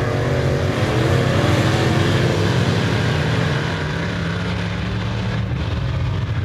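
Several open-wheel dirt modified race cars with their engines running hard around the oval. The engine pitch climbs over the first three seconds as they accelerate, then holds steady.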